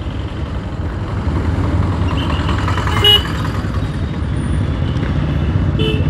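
Motorcycle riding through city traffic: steady low engine and road noise, with a short horn toot about three seconds in.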